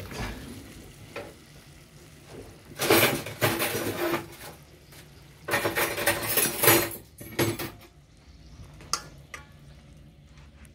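Roasting pot and its lid being handled: metal clattering and scraping in two noisy bursts of about a second and a half, about three and about five and a half seconds in, then a shorter one.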